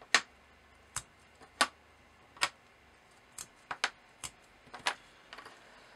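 Small printed circuit boards clicking and tapping as they are handled and set down, about ten sharp clicks at irregular intervals.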